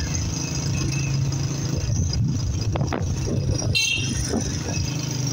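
Honda CG 125's single-cylinder four-stroke engine running steadily under way, with a short high-pitched vehicle horn beep a little under four seconds in.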